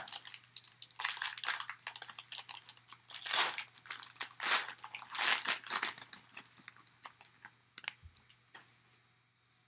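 Foil trading-card pack wrapper being torn open and crinkled by hand: a run of crackling rustles that thins out after about six seconds to a few light clicks and rustles.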